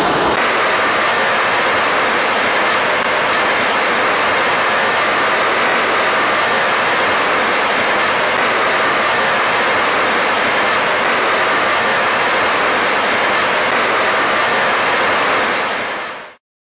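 Steady road and wind noise of a car driving at speed, heard from inside the cabin. It fades out about a second before the end.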